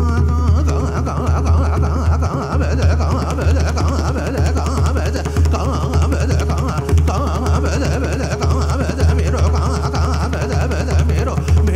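Dhrupad singing by a male voice with pakhawaj accompaniment over a tanpura drone: the drum plays a dense run of fast strokes with a deep bass while the voice weaves above.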